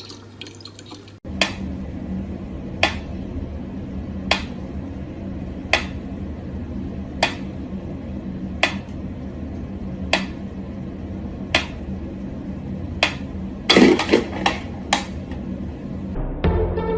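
Mechanical pendulum metronome ticking slowly, one sharp click about every second and a half. Near the end there is a quick cluster of louder clicks and knocks.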